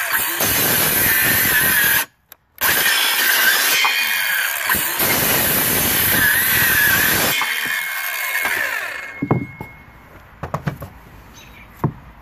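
Cordless Craftsman 5-1/2-inch trim saw running and cutting through an old pressure-treated board, with a steady high whine. The sound drops out for about half a second about two seconds in, and the saw winds down about nine seconds in, followed by a few short knocks.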